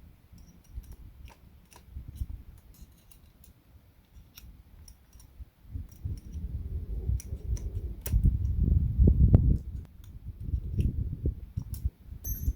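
Light clicks and handling noise from small hand tools and metal parts being worked at a bench, with low rubbing and knocking that gets louder and busier about halfway through.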